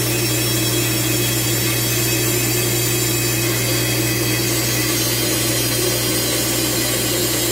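Workshop dust collection system and band saw running together: a steady machine drone with a strong low hum that doesn't change.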